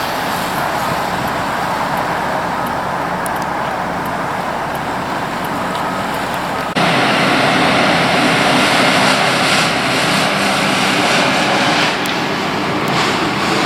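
Steady engine noise from running machinery, with no words. About seven seconds in it cuts abruptly to a louder engine sound with a clearer low hum.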